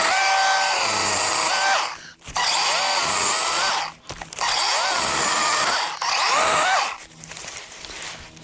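DeWalt 20V cordless chainsaw with a 12-inch bar cutting firewood in three bursts. Its electric motor whine dips in pitch as the chain bites into the wood and climbs back as it frees, with short breaks about two and four seconds in. The saw stops a little before the end, leaving quieter scattered sounds.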